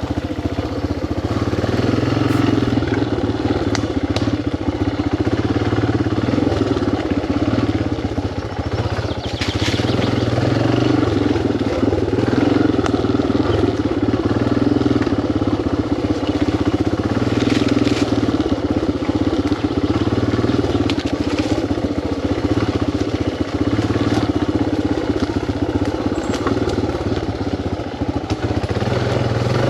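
Yamaha TT600R motorcycle engine running steadily.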